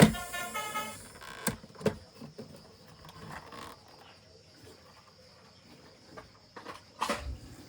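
Background music ends about a second in, followed by a few scattered sharp clicks and knocks.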